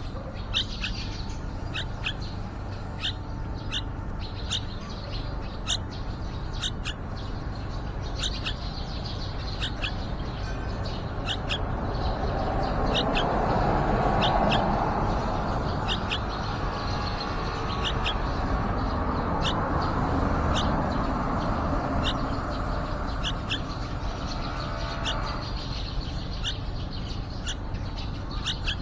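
Yellow-vented bulbul chicks giving short, high chirps over and over, about one or two a second. A broad rushing noise swells up in the middle and fades again.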